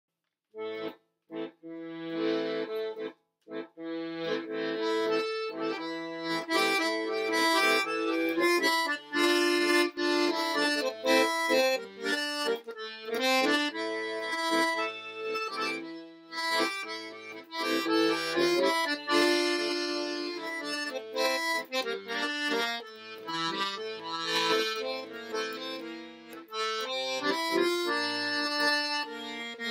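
Piano accordion played solo: a melody on the keyboard over bass and chord notes. It begins with a few short separate notes with gaps between them, then settles into continuous playing.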